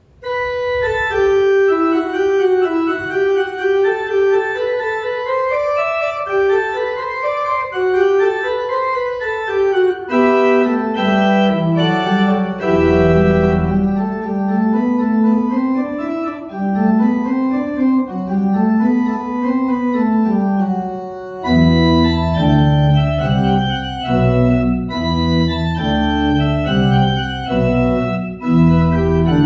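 Pipe organ playing. A single running melodic line starts suddenly, a lower voice joins about ten seconds in, and fuller chords with a deep pedal bass come in after about twenty seconds.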